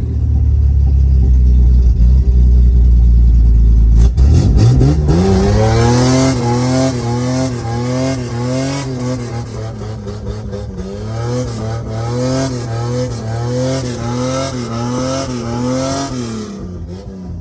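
Straight-piped RB30 straight-six in a Nissan Patrol, running with no exhaust under heavy throttle. A deep rumble gives way about four seconds in to a sharp rise in revs. The engine holds high, its note wavering up and down about every half second, then falls away near the end.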